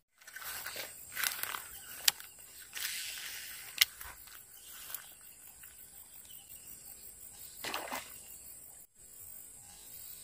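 Footsteps through wet grass and swamp vegetation, with a few sharp clicks, the loudest about two and four seconds in.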